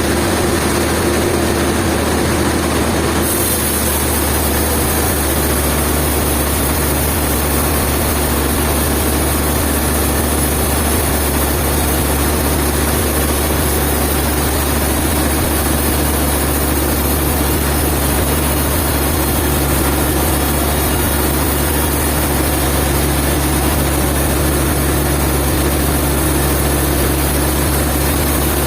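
A heavy engine running steadily under a dense mechanical din, with a higher hiss growing louder about three seconds in.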